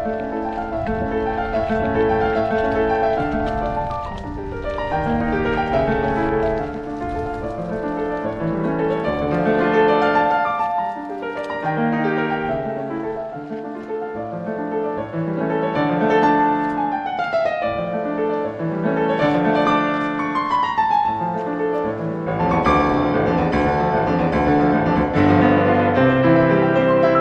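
Piano music laid over the footage, with several descending runs of notes in the middle.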